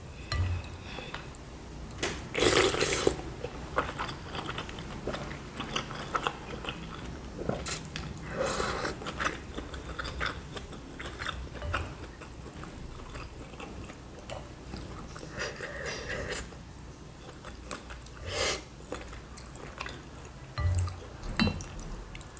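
Close-up mouth sounds of a person eating bakso meatballs and thin noodles in chili broth: steady chewing and biting, with a few louder short slurps spread through.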